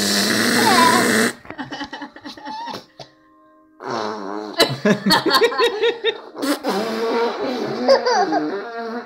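A loud, buzzy mouth-made fart noise (a blown raspberry) that stops about a second and a half in. After a short hush, laughter and giggling.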